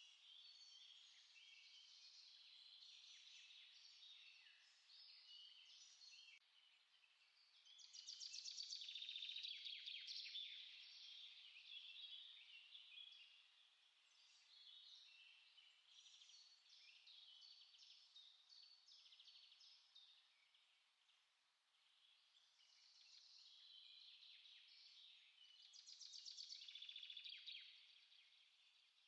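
Small songbirds chirping and singing quietly, a near-continuous flow of short high calls, with two louder rapid trills, about a third of the way in and again near the end.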